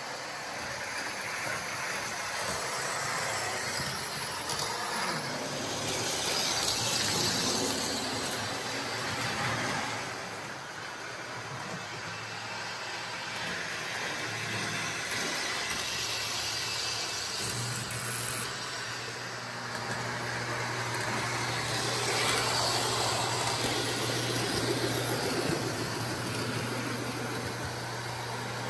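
Small O-gauge model train units running on three-rail track: a steady whirring, rolling noise of wheels and small electric motors that swells and fades as they pass. A steady low hum joins a little past halfway.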